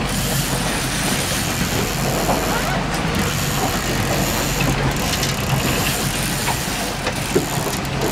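Fishing boat's engine running steadily at slow trolling speed, a low even drone mixed with a hiss of wind and water.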